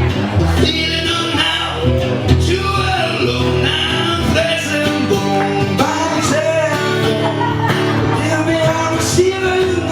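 Live rock band playing, with guitar and bass under a melodic line that bends in pitch.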